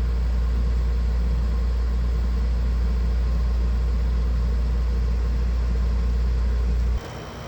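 12,000 BTU air conditioner running with a steady low hum, which drops away suddenly about seven seconds in.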